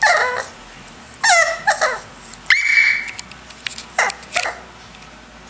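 A dog whining and yelping: about six short high-pitched cries, most sliding downward in pitch, one held briefly about halfway through.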